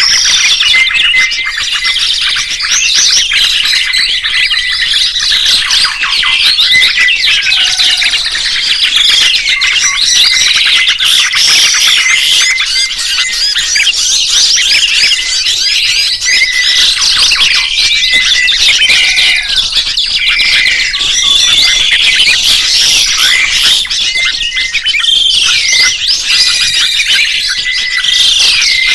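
Dense chorus of songbirds chirping and trilling over one another, quick rising and falling notes packed together, with one short note repeated again and again at the same pitch.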